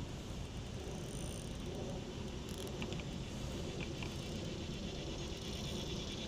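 Steady outdoor background noise: a low rumble with a faint hiss above it, and a few light ticks about three and four seconds in.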